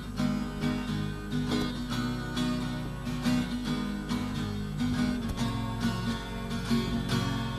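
Two guitars, one of them acoustic, strumming an instrumental song intro in a steady rhythm, with no voices yet.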